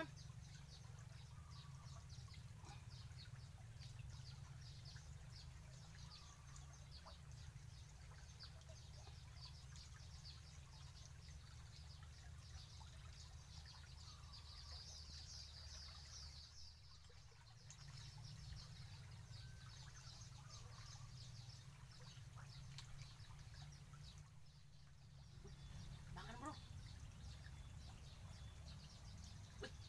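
Faint stream-side ambience: a steady low rumble from the fast-flowing muddy stream under rapid, high chirping of small birds, which thickens for a few seconds mid-way.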